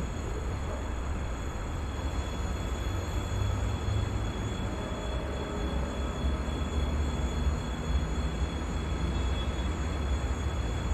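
Low, steady rumble of a train approaching along the line, building slightly, with wind buffeting the microphone.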